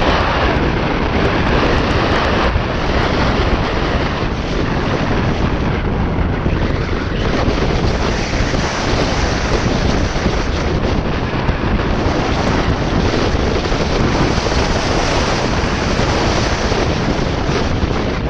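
Heavy, steady wind noise buffeting the microphone of a camera mounted on the outside of a 2016 Subaru WRX STI as it drives a dirt rallycross course, with the car's tyre and engine noise mixed in underneath.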